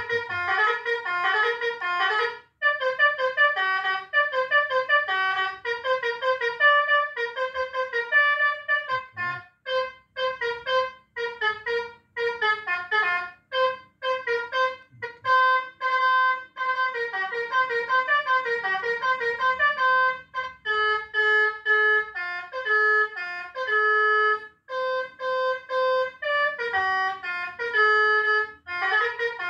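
Electronic Basuri telolet bus horn playing a fast melody of short, stepped horn-like notes, pausing briefly a few times between phrases.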